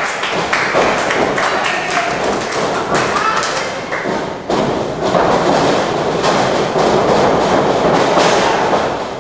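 Repeated thuds and knocks of wrestlers moving on a wrestling ring, over a crowd shouting and cheering.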